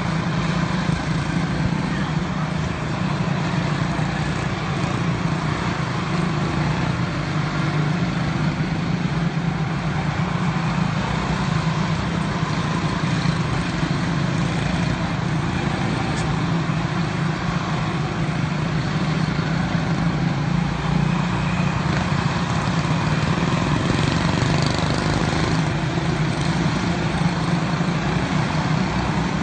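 Several Honda-engined quarter midget race cars running together on the track, their small single-cylinder engines making a steady, unbroken drone.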